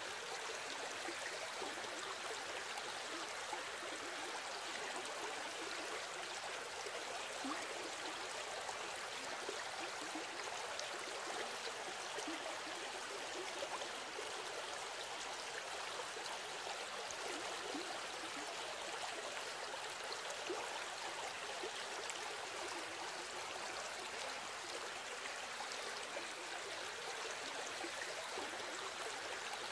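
Steady sound of running water, like a flowing stream, with no changes or distinct events.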